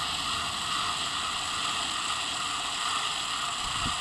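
Homemade gate opener's Power Wheels toy-car electric motor running steadily, with gear noise, as it drives the gate. A short low knock comes just before the end.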